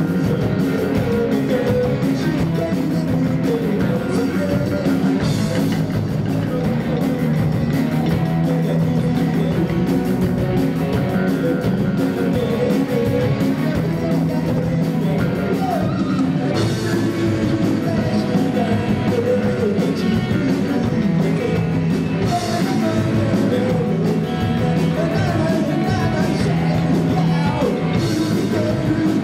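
Live rock band playing: electric guitar through Marshall amplifiers, electric bass and a drum kit, with a sung lead vocal.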